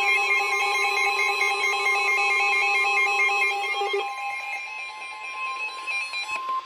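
Weather radio going off for a flash flood warning. A shrill electronic alarm rings over a steady single-pitch warning tone, then stops about four seconds in. The steady tone carries on alone: the weather radio warning alarm tone that signals a warning broadcast.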